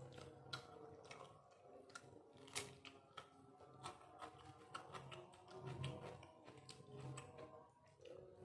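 Faint, irregular mouth clicks and smacks of someone eating a rice and chili-chicken meal, with the sharpest about half a second and two and a half seconds in. A faint steady hum of tones runs underneath.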